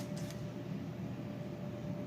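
Steady low electrical hum with a thin constant tone from a powered-up arcade monitor and its test setup on the bench, with a small click or two right at the start.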